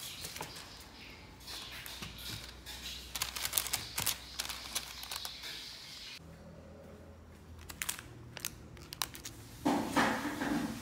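Light rustling and small taps of hands pleating baozi dough and handling parchment paper, with a louder rustle of the paper near the end.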